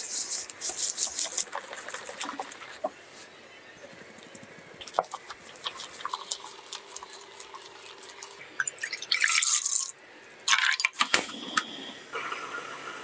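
Wire whisk beating egg yolks and sugar in a glass bowl: quick wet strokes and light clicks. Near the end come two louder, noisier bursts.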